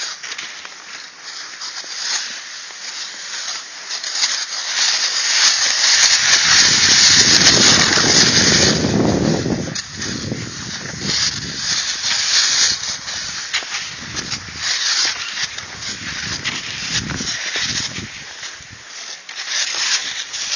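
Cross-country skis swishing and scraping on a groomed snow trail in a steady stride rhythm. About five seconds in, wind buffets the microphone with a low rumble for about four seconds, the loudest part, then the ski swishing carries on.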